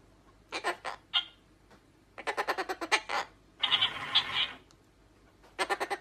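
Cockatoo giving several bursts of rapid, stuttering chatter, with a harsher, raspier stretch in the middle.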